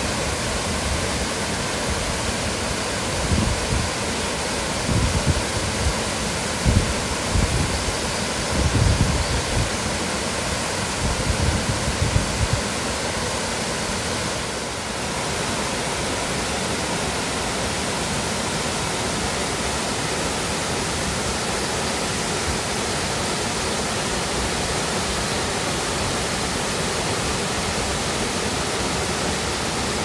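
Steady rushing of Iwaryuji Falls, a four-tier waterfall with a 40 m drop. Irregular low rumbles come and go over it in the first half.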